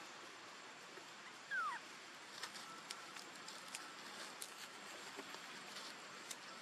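Newborn macaque giving one short falling squeak about one and a half seconds in, with faint scattered clicks and rustles around it.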